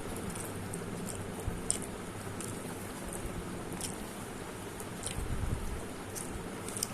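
A person chewing food close to the microphone: scattered soft, wet mouth clicks and smacks over a steady background hum.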